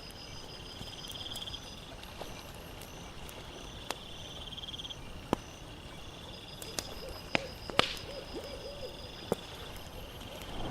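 Campfire crackling with scattered sharp pops, over a steady high trilling of night insects.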